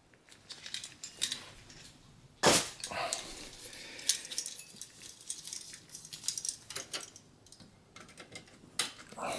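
CPU heatsink being handled and set back down onto the processor inside a desktop PC case: scattered light clicks and rattles, with one louder knock about two and a half seconds in.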